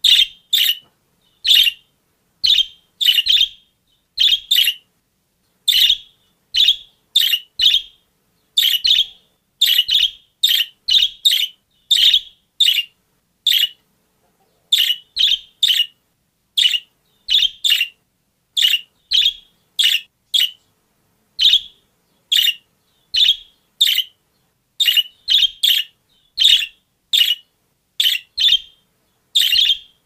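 Budgerigars chirping: short high chirps, often in quick pairs or threes, repeating about once or twice a second with brief silent gaps between.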